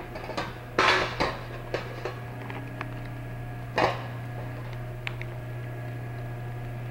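Cardboard box and wrapping of a new oxygen-sensor fuel cell being handled and opened: rustles, scrapes and small clicks, loudest about a second in and again near four seconds, over a steady low hum.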